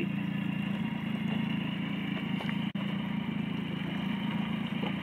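A motorboat engine running steadily at low revs, a constant low hum, with a momentary break nearly three seconds in.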